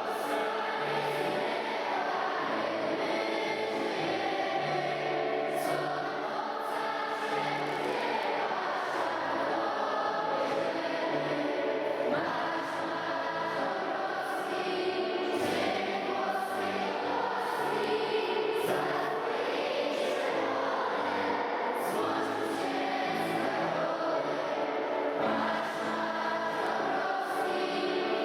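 A song with choir singing over an instrumental accompaniment that has a steady bass line, with no clear words.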